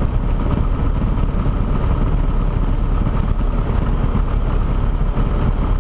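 Piper PA-24 Comanche's piston engine and propeller running steadily at taxi power, a constant low drone heard close up from outside the cowling.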